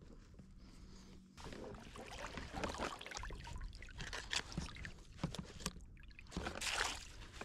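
Irregular knocks, scrapes and rustles of gear being handled on a kayak: a plastic crate and a plastic pipe being worked by hand, with small water sounds.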